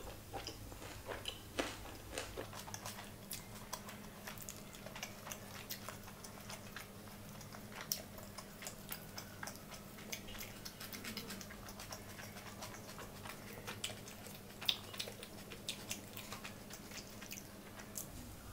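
Close-up mouth sounds of a person eating soft Indian food (paneer curry and naan) by hand: chewing with many scattered short, wet clicks and smacks. A faint steady low hum sits underneath.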